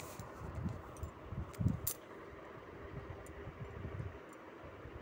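Quiet room tone with soft low thumps and a few faint clicks, the loudest a little under two seconds in.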